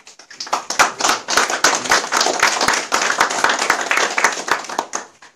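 A small group of people applauding, building up just after the start and dying away near the end.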